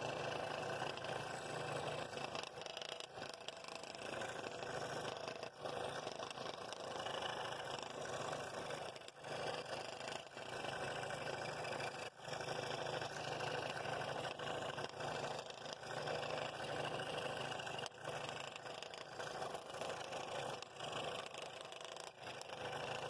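Scroll saw running, its fine blade cutting a ring out of a wooden bowl blank along the pattern line. The sound is steady, with a few brief dips where the feed eases.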